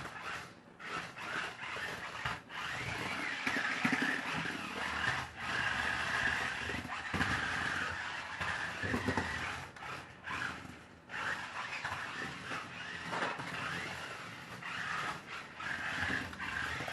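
Small 1/28-scale RC stunt car's electric drive motors whining in spurts, cutting out and starting again, with the wheels and plastic body scraping and knocking as the car spins and flips over.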